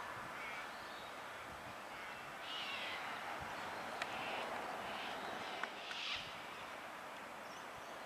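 Birds calling over steady outdoor background noise: one call about two and a half seconds in, another around six seconds in, with two short sharp clicks between them.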